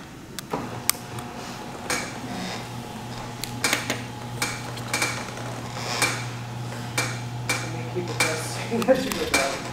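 Orthodontic debonding pliers clicking as they pop metal braces brackets off the teeth, sharp metallic clicks about once a second. Under them runs a steady low hum, which stops near the end.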